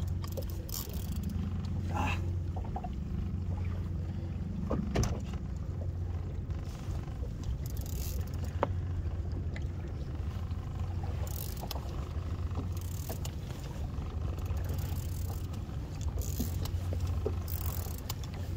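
Small boat's outboard motor idling with a steady low hum, with scattered light clicks and knocks.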